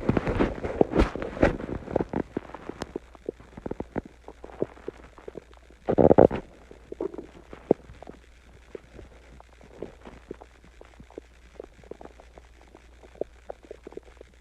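A human stomach gurgling after a meal and a drink of water: dense bubbling pops for the first couple of seconds, a louder drawn-out gurgle about six seconds in, then scattered fainter pops and gurgles.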